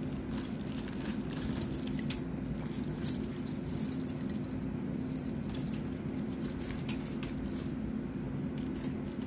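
Metal bangle bracelets jingling and clinking against each other as they are handled, in a run of small irregular clicks and jangles.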